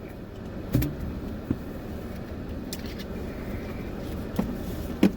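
Steady road and engine noise inside a moving car's cabin, with two sharp knocks, one about a second in and one near the end.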